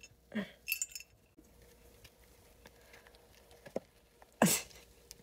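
Small kittens padding and scrabbling about on crinkly puppy training pads, with soft rustles and faint ticks. One louder rustle comes about four and a half seconds in.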